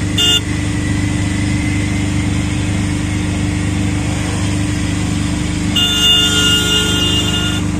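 Motor vehicle engine running steadily. Two steady tones of several pitches sound over it, a short one just after the start and a longer one lasting about two seconds near the end.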